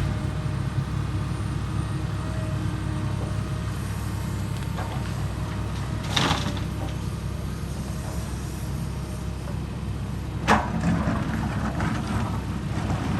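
Excavator's diesel engine running steadily at work, with two sharp knocks, about six seconds in and again about ten seconds in.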